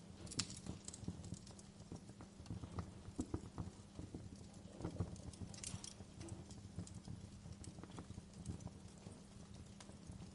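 Wood fire crackling in a fireplace: irregular small pops and snaps, a few sharper ones, over a low steady hum.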